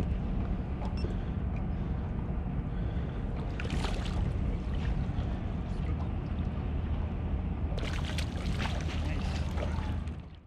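Boat motor running steadily with a low hum. A short spell of clicking and rattling comes about four seconds in, and a longer one from about eight seconds.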